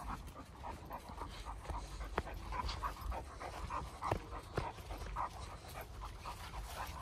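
A dog panting, a fairly faint run of short, quick breaths.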